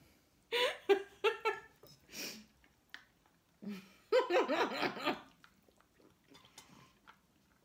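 A woman laughing in short bursts, once about half a second in and again about four seconds in, with a breathy sound between.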